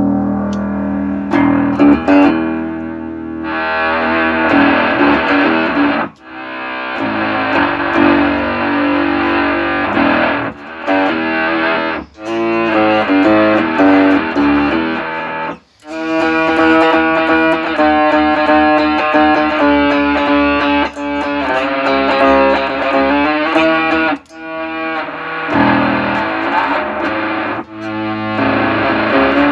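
Plucked electric string instrument played through an Electro-Harmonix Bass Micro Synth pedal, giving buzzy synthesized tones in phrases with brief breaks every few seconds. The pedal is working again after its shorted surface-mount ICs were replaced.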